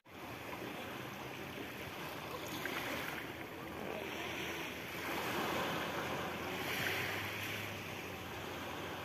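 Sea waves washing onto a sandy beach, a steady rush that swells twice as waves come in.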